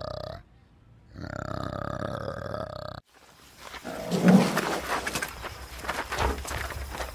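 A male orangutan gives two long, low, drawn-out calls with a short break between them. Then a rhinoceros feeding gives one loud snort a little after the switch, followed by crunching as it chews carrots and greens.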